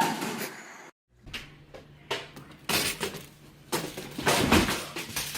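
A series of sudden knocks and clatters over a low steady hum, the loudest cluster near the end.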